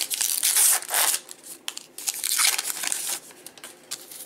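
A 2019 Topps Gypsy Queen baseball card pack's wrapper being torn open by hand, crinkling and tearing in two spells of about a second each.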